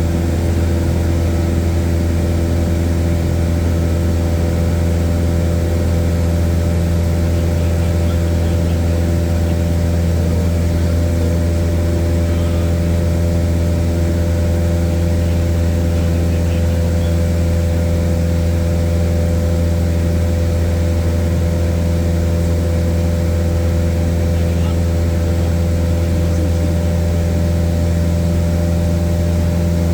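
Airplane engine droning steadily in flight, heard from inside the cabin: a loud, unchanging low hum with several steady tones above it.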